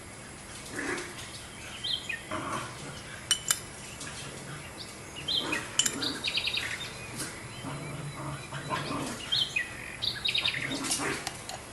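Small birds chirping in short calls and quick trills, over a steady low hum, with a couple of sharp clicks about three seconds in.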